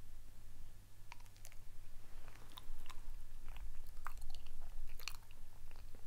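A person biting into a peeled banana and chewing it with the mouth full, with many small scattered mouth clicks.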